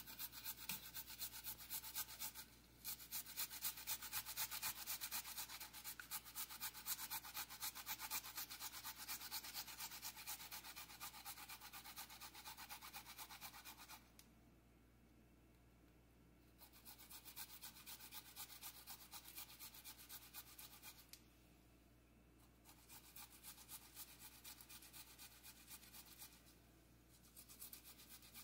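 Fresh ginger root worked back and forth on a hand grater into shreds: a quick, even run of scraping strokes that stops a few times, longest about halfway through.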